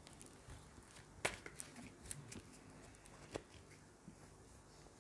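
Tarot cards being picked up and handled on a tablecloth: a few soft taps and card rustles, the clearest about a second in and again near the three-and-a-half-second mark, over quiet room tone.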